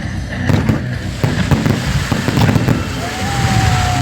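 Fireworks bursting in quick succession, a dense run of bangs and crackles. Near the end a long, nearly level whistling tone runs through the bangs.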